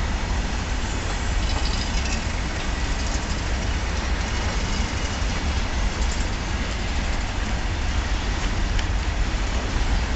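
Steady rumbling noise of a goods train of covered wagons rolling along the track, heaviest in the deep bass and unchanging throughout.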